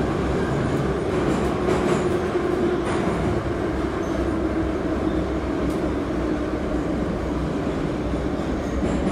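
An 81-717/714 metro train running through the tunnel, heard from inside the car: a steady rumble of wheels and running gear with a faint hum and a few light rail clicks in the first three seconds.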